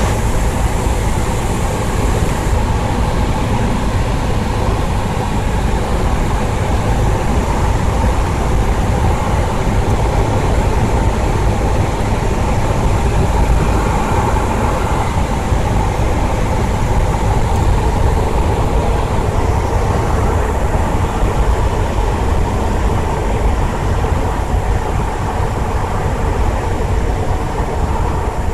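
Light aircraft engine running steadily, a constant loud drone with no change in pitch.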